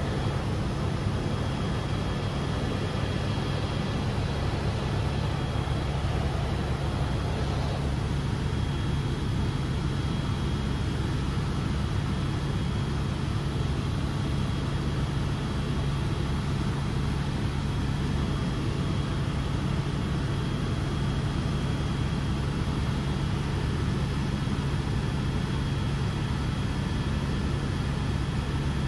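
Helicopter cabin noise in flight: a steady low drone from the engine and rotors, under a thin, constant high whine.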